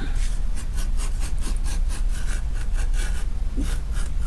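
Quarter-inch French skiver shaving thin slivers of leather from behind a stitching groove, heard as a quick, even succession of short scraping strokes.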